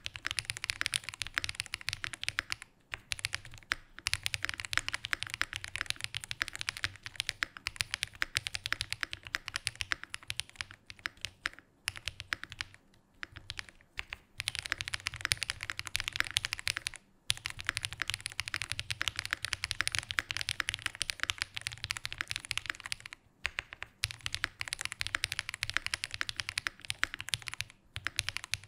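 Kyuko80 prototype mechanical keyboard, with an aluminium case, PC plate and stock Gateron Pureberry switches, being typed on quickly in a sound test. It gives a dense, continuous clatter of keystrokes, broken by a few short pauses.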